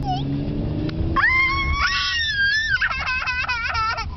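Young child shrieking with delight, a long high squeal from about a second in with a second high voice overlapping it briefly, then breaking into rapid squealing laughter, about five short bursts a second. A low car road rumble runs underneath.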